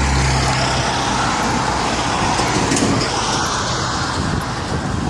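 Road traffic: a motor vehicle going by, its engine hum strongest in the first second, then a steady rush of tyre and road noise.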